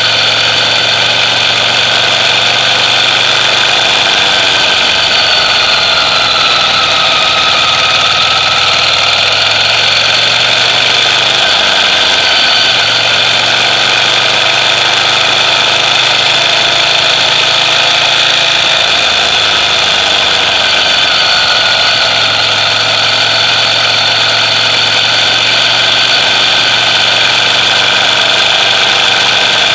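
Ducati Monster EVO's air-cooled L-twin engine idling steadily through its stock exhaust, the pitch wavering slightly a couple of times.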